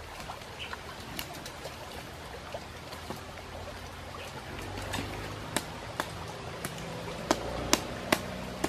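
Small wood campfire of sticks crackling, with sharp pops that come more often and louder in the second half, over a steady hiss.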